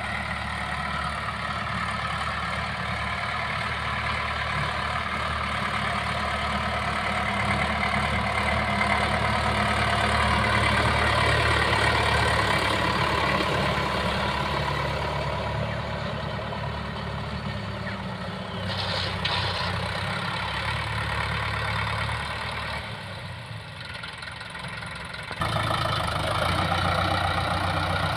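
Preet 6049 tractor's diesel engine running steadily under load while pulling a cultivator through tilled soil. It grows louder as the tractor passes close, about ten seconds in, fades somewhat, then turns abruptly louder again near the end.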